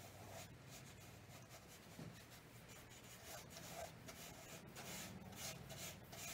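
Flat watercolour brush dragged across watercolour paper: a faint, scratchy rubbing in repeated short strokes, a little stronger near the end.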